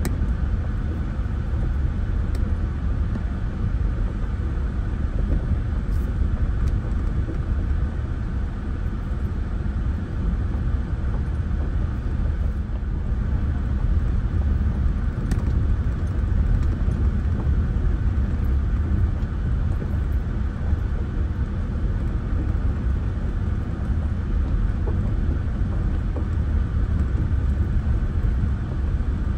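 A car rolling along a gravel lane: a steady low rumble of tyres and engine.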